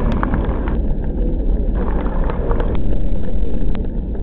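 Airbus A380 jet engines rumbling as the airliner makes its low fly-past under power, with wind buffeting the microphone and a few light clicks.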